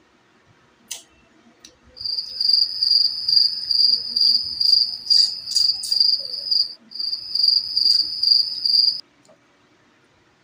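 A cricket chirping in a loud, steady high trill that pulses about two to three times a second, starting about two seconds in, breaking off briefly, then stopping abruptly near the end. One sharp click about a second in.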